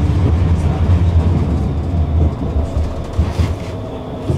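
Tram running along its rails: a steady low rumble of wheels and running gear with a faint motor tone above it, getting a little quieter in the second half.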